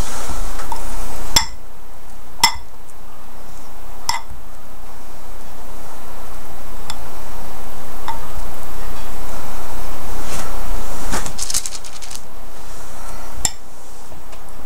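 A metal fork clinking against the bowl of melted chocolate in scattered sharp, short clinks a few seconds apart, with a quick run of them near the end.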